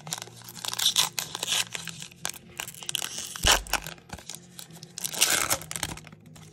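Foil trading card pack (Panini Chronicles Draft Picks) being torn open by hand in a series of rips and crackles, then the foil wrapper crinkling as the cards are pulled out near the end.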